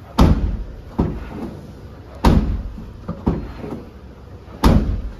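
Car tailgate being shut three times, about 2.3 s apart: heavy slams with lighter knocks between them. This is a test of whether the metal rear license plate, now padded with soft foam at its lower half, still raps against the tailgate's steel panel.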